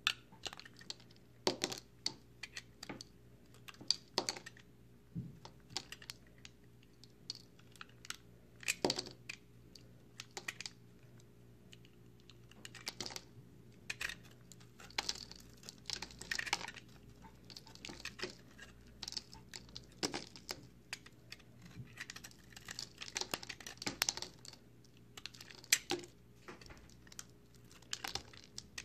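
Utility knife blade cutting and shaving through dry, crumbly recycled soap, making many short, irregular crunching crackles as pieces break away. The crackles come in quick clusters, thickest in the middle and toward the end.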